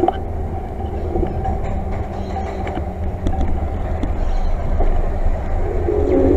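A small vehicle travelling along a path: a steady low rumble of the ride and wheels, with a faint steady motor whine over it.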